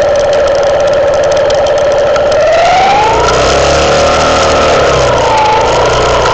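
Herald Classic motorcycle engine running with a pitched whine that rises as the revs pick up about two and a half seconds in and drops again near the end, with a low rumble added from about three seconds in.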